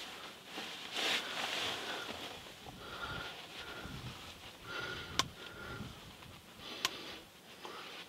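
A person breathing and sniffing softly close to the microphone, some breaths carrying a faint thin whistle, with two sharp clicks about five and seven seconds in.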